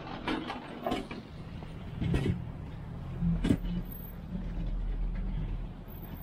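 Loaded hand truck rolling down a metal loading ramp and across brick pavers: the wheels rumble over the paving, with a few sharp knocks and clanks as it bumps along.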